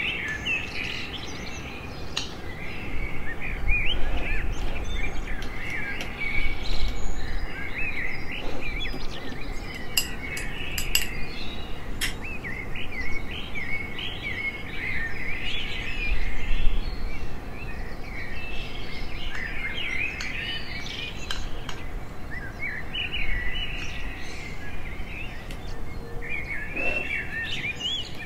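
Small songbirds chirping and singing continuously over a low steady background noise, with a few sharp clicks about ten to twelve seconds in.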